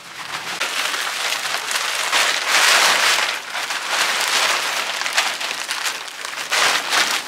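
Plastic greenhouse cover rustling and crinkling as it is handled and pulled on, a continuous crackly hiss that is loudest around the middle.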